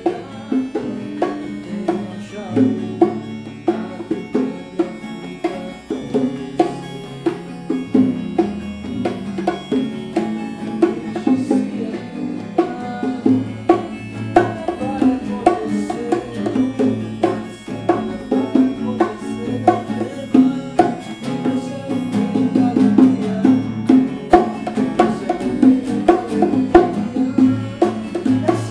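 Instrumental passage by an acoustic band: two acoustic guitars picked and strummed over a steady rhythm of hand drums, with a keyboard played alongside.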